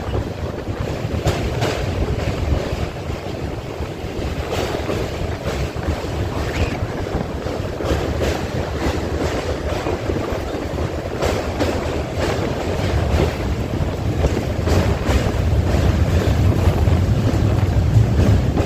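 Express train running over a steel truss rail bridge, heard from an open coach doorway: a steady rumble of the wheels on the track with irregular sharp clacks, mixed with wind buffeting the microphone. The low rumble grows louder over the last few seconds.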